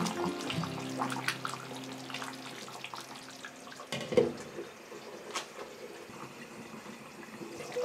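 Thick curry bubbling and popping in a pan as a wooden spoon stirs it. About four seconds in, a glass pan lid is set down on the pan with a single sharp clink that rings briefly.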